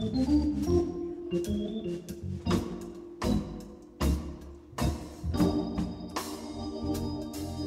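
Instrumental church music: an organ holding sustained chords, with sharp percussive hits keeping a steady beat of a little more than one a second.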